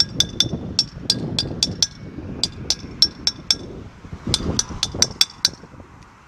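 Repeated light metal-on-metal taps, each with a short bright ring, in quick runs of several strikes. A hand tool is tapping a metal part during generator repair work.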